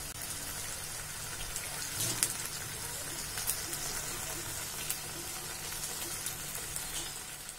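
Thick aloo dum curry sizzling in a kadai, a steady hiss with scattered sharp crackles. The oil has separated from the masala, the sign that the curry is done.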